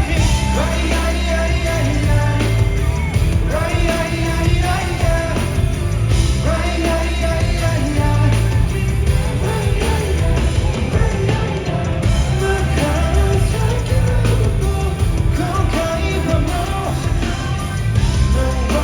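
Male pop singer singing live over a loud rock-pop backing track with a steady, heavy bass beat.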